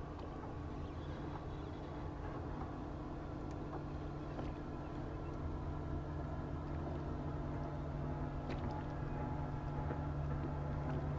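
Steady low hum of a boat motor holding one pitch, growing slightly louder, with a few faint clicks.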